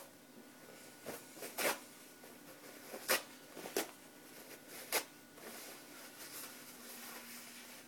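A paper towel being torn by hand, about six short, sharp rips over the first five seconds, then the torn paper crumpled between the palms with a softer rustle.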